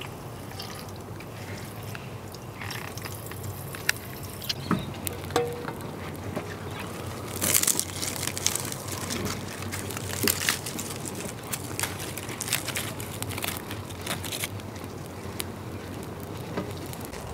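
Campfire of dry twig kindling crackling and snapping as it catches alight, irregular pops with a denser flare of crackle about halfway through.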